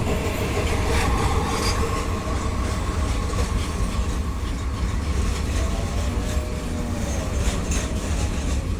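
Loaded freight train rolling past, a steady low rumble with the wheels clicking and clattering over the rail joints.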